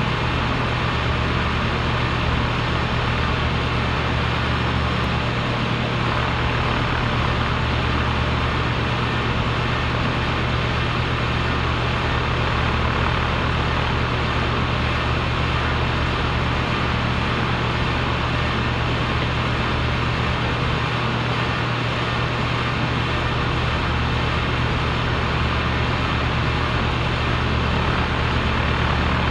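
A compressor running steadily: a constant drone with a strong low hum.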